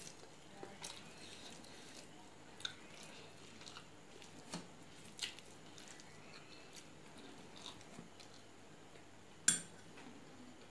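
Close, quiet chewing and the wet squish of fingers mixing rice on a steel plate, with scattered small clicks. Near the end comes one sharp metallic clink as a steel tumbler is picked up.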